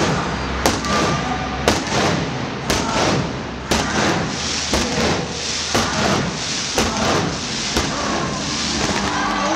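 Sharp bangs about once a second, marking off a New Year countdown, over the steady noise of a large stadium crowd.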